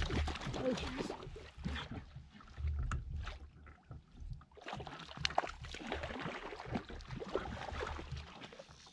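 Hooked trout splashing at the surface right beside a pontoon boat, with water slopping and irregular splashes and knocks, strongest in the first couple of seconds and again about five seconds in.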